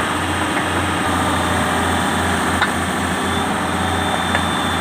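Excavator's diesel engine idling steadily, with a couple of sharp clicks over it.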